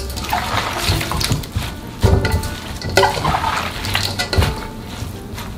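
Handfuls of wet, salted young radish (yeolmu) greens being turned over in a stainless steel bowl, halfway through salting: leaves rustling and squelching in their brine, with light knocks against the bowl, in irregular swells about once a second.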